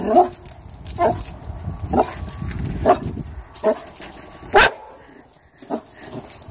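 Boxer puppy barking in short single barks, about one a second, seven in all.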